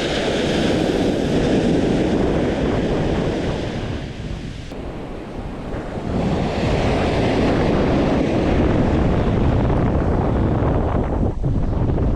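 Ocean surf washing onto the beach with wind buffeting the microphone; the wash eases about four seconds in and swells again about two seconds later.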